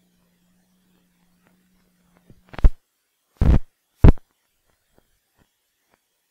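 A faint steady low hum that stops about two and a half seconds in, then three loud sharp knocks in quick succession.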